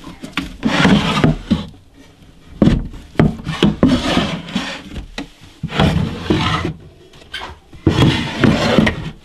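Wooden drawers sliding open and shut on wooden runners, wood rubbing on wood in repeated scraping strokes, with sharp knocks as they stop.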